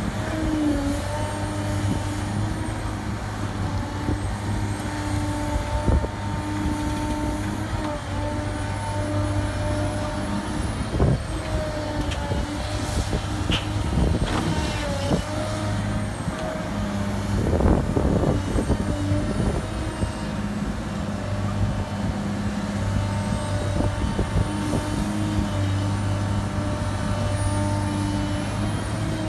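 Cat M316D wheeled excavator's diesel engine running under load with hydraulic whine, its pitch rising and falling slightly as it digs and swings. A few sharp knocks and thuds come as the bucket works and soil drops into the articulated dump truck's bed.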